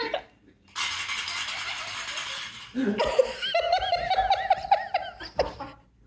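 A rattle ball shaken for about two seconds, its loose insides making a fast, hissing rattle. Then an Amazon parrot cackles in a quick run of rising-and-falling notes.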